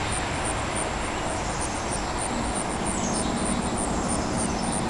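Steady outdoor background of distant road traffic, with a low engine hum coming in a little over two seconds in and faint high chirps above it.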